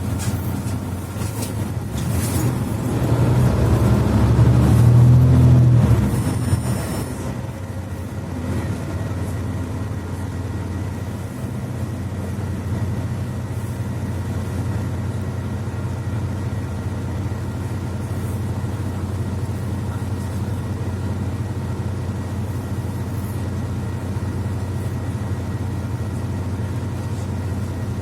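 Mercedes-Benz Citaro C2 articulated bus with Voith automatic transmission, heard from inside the passenger cabin. Its engine runs up louder under load for a few seconds near the start, then drops back to a steady low drone for the rest of the stretch.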